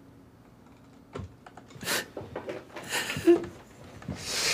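Scattered soft clicks and light knocks with brief rustling, then a short breathy hiss near the end.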